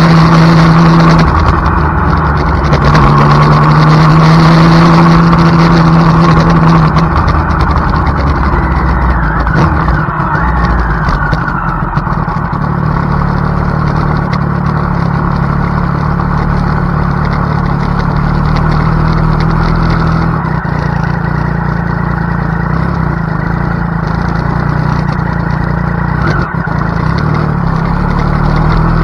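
Triumph Daytona 675's three-cylinder engine running at a steady pitch on the track, with a brief dip about two seconds in. From about seven seconds in it settles to a quieter, lower steady running note.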